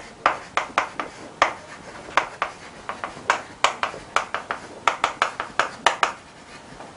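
Chalk writing on a blackboard: an irregular run of sharp taps and short strokes, a few each second.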